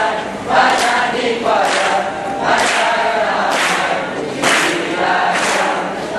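A group of voices singing a Malay seloka verse in unison to a chant-like tune, with crisp 's' sounds falling on a steady beat about once a second.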